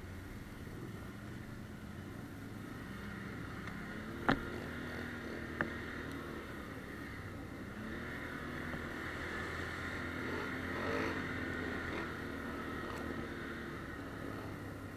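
ATV engine running under the rider, its pitch rising and falling as the throttle changes. Two sharp knocks come about four and five and a half seconds in.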